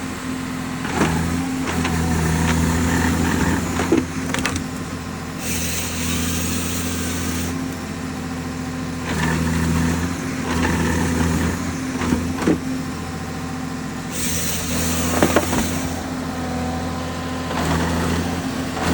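John Deere 1470G forestry harvester running, its engine hum stepping up and down every few seconds as the load changes. Sharp knocks and cracks come every few seconds over it.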